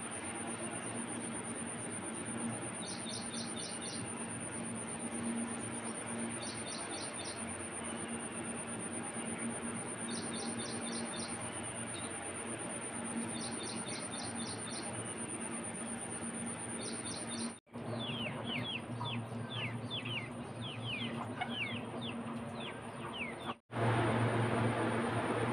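Birds calling: a short rapid series of high notes repeated every few seconds, then a flurry of quick downward chirps, over a steady high-pitched whine.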